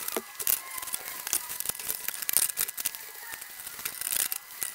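A sheet of foam being handled and pushed against a sheet-steel battery box: a run of light, scratchy rustles and scuffs.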